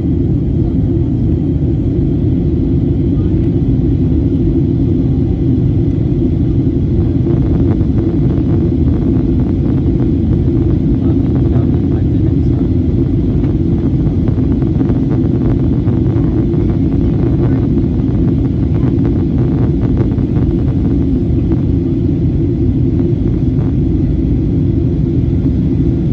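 Steady low rumble of cabin noise inside a Boeing 737-800 airliner on descent, from its engines and the air rushing past the fuselage.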